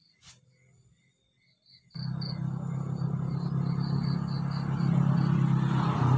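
A motor or engine starts running abruptly about two seconds in and carries on steadily, with a low hum and a rising hiss. Crickets chirp faintly before it.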